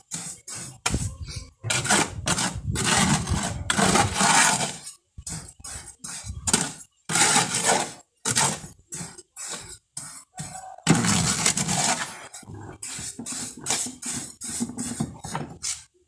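Mason's steel trowel scraping and scooping wet cement-sand mortar against the sides and bottom of a plastic mixing tub, in repeated irregular strokes with short pauses between them.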